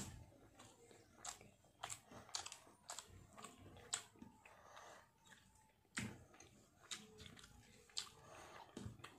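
Faint chewing of rice and fried fish, with irregular wet mouth clicks and smacks.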